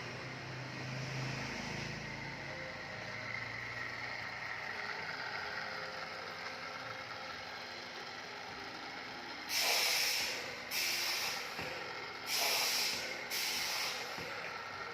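Burr-free round-pipe cutting machine running with a steady mechanical noise, then four short, loud hisses of compressed air in two pairs, starting about two-thirds of the way through.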